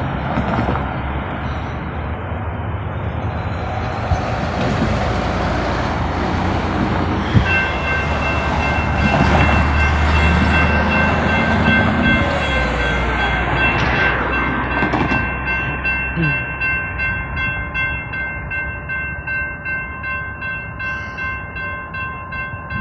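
Road traffic noise, then about seven seconds in a railroad grade-crossing bell starts ringing and keeps ringing steadily as the crossing signals activate for an approaching train.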